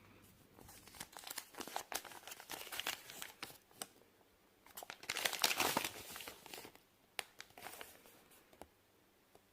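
Plastic toy wrappers crinkling and tearing open by hand, in two spells of rustling with scattered clicks; the louder spell comes about five seconds in.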